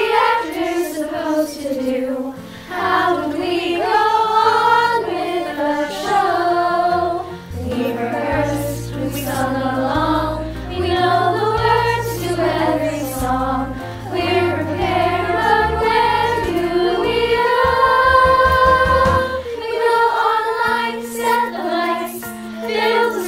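A chorus of girls' voices singing a musical-theatre song in unison, their separate home recordings mixed together as a virtual choir, over an accompaniment with a bass line. A long note is held about three-quarters of the way through.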